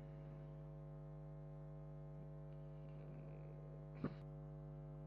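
Low, steady electrical hum with a stack of even overtones, mains hum picked up by the recording microphone. A single short blip about four seconds in.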